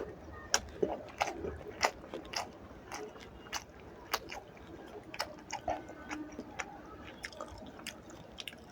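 A person chewing a mouthful of rice and fried fish curry, with irregular sharp wet clicks of the mouth, roughly one or two a second.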